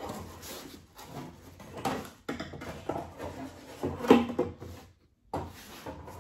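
Wooden cutout boards being knocked together and shifted on the floor, mixed with a man's strained grunts, with a sudden short break in the sound about five seconds in.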